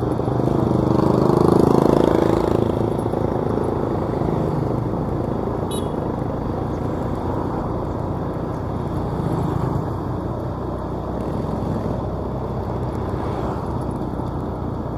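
Street traffic heard while moving along the road: a steady engine and road rumble that swells as a public minibus (angkot) passes close about two seconds in, then smaller swells as motorcycles go by later.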